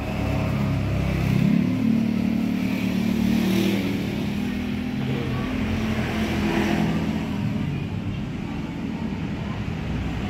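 A motor vehicle engine running, its pitch rising about a second in, holding for a few seconds, then easing off.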